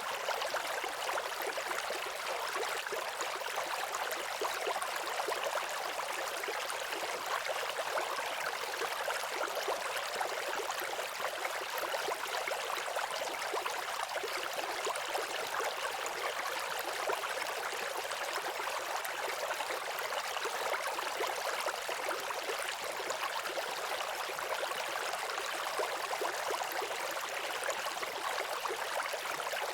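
Waterfall: falling water rushing steadily and evenly, a bright hiss with almost no low rumble.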